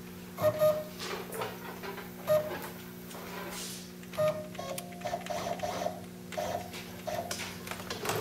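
Stepper motors of a CNC-converted Grizzly G0602 lathe driving the carriage in a string of short moves, each a brief whine with clacks, over a steady electrical hum; the spindle is not turning. Something in these moves sounds to the machinist like the Z axis skipping.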